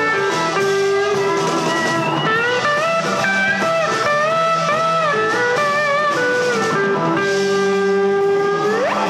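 Live blues-rock band playing an instrumental break: an electric guitar lead of bent notes over strummed guitars, drum kit and bass. Near the end it holds one long note, then swoops sharply up in pitch.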